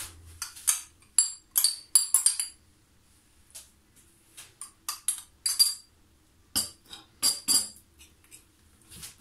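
A metal spoon clinking and tapping against a bowl and container as yogurt is spooned in: quick runs of sharp clinks with a short ringing, sparse in the middle.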